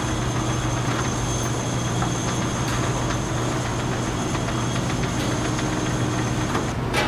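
Steady hum of running factory machinery with a thin high-pitched whine that stops shortly before the end, followed by one short sharp noise.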